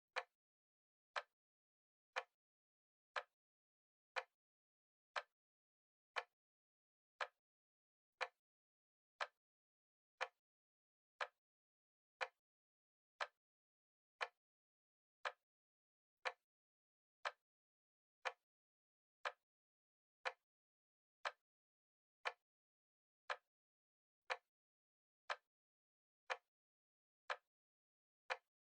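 Timer ticking steadily, one short, sharp tick each second with silence between.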